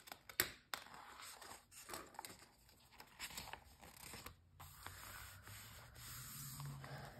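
Glossy magazine page being turned: the paper crinkles and rustles, with one sharp crackle about half a second in. Hands then rub and smooth the page flat.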